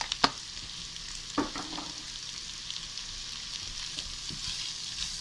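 Shredded carrots and char siu pork sizzling in a hot pan over raised heat, stirred with a wooden spatula that knocks against the pan near the start and again about a second and a half in.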